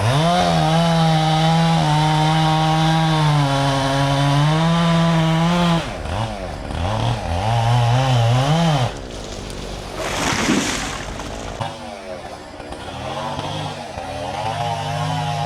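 Gas chainsaw held at high revs for about six seconds, then revving up and down, dropping back around nine seconds in and picking up again near the end. There is a short noisy burst a little after ten seconds.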